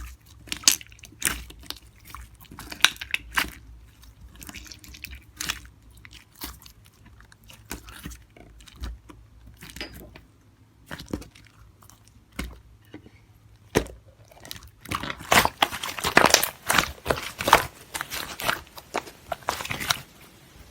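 Slime being pressed and squished by hand, giving irregular crunchy clicks and pops that come thickest in the last few seconds.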